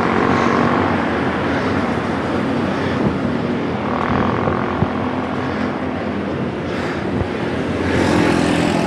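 Road traffic noise: a motor vehicle's engine running steadily alongside, mixed with rushing wind on the microphone of a moving bicycle.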